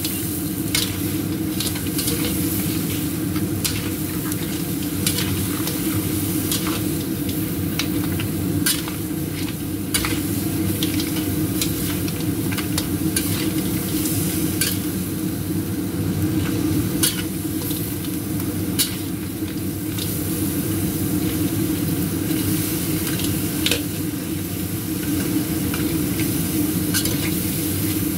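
Crab pieces sizzling in a stainless-steel wok while a metal spatula stirs and tosses them, scraping the pan and clacking against the shells in frequent sharp clicks. A steady low hum runs underneath.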